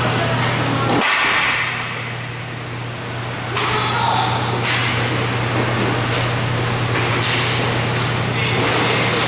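Inline roller hockey play: sharp cracks and knocks of sticks and puck against the rink surface and boards, several times, over a steady low hum and general rink noise.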